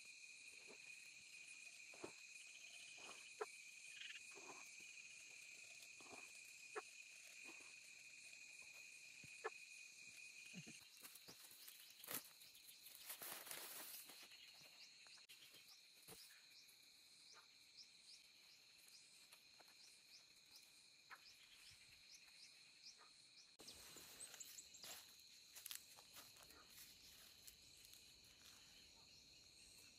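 Faint chorus of insects: several steady, high trills layered together, one of which drops out about eleven seconds in. Occasional soft knocks and rustles sound over it.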